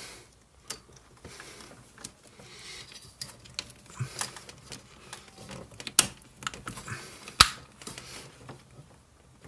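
Small plastic parts and wire being handled on a workbench: scattered light clicks, taps and rustles, with two sharper clicks about six and seven and a half seconds in.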